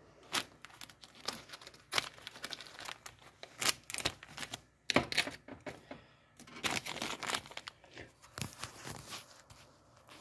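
Plastic packaging bags crinkling and rustling as they are handled, with irregular sharp crackles.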